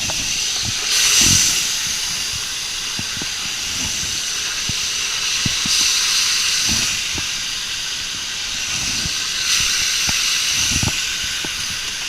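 Chicken leg quarters sizzling in hot olive oil in a frying pan on high heat. The sizzle swells three times as the pieces go into the pan, with a few light knocks.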